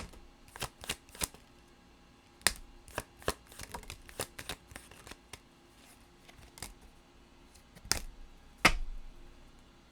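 Tarot cards being shuffled and handled: a scattered series of sharp card snaps and taps, with two louder slaps near the end.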